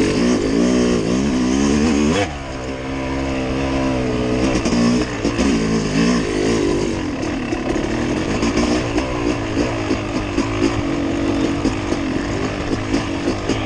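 Motorcycle engine running under load with revs rising and falling, dropping sharply about two seconds in before climbing again.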